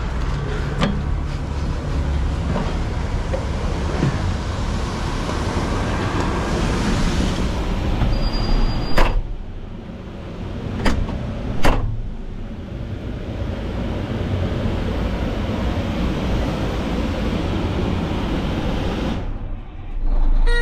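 Cat 730 articulated dump truck's diesel engine idling steadily, with several sharp clicks and clunks of the cab door and latches. After a loud clunk about nine seconds in, the engine sound turns more muffled, as heard from inside the closed cab.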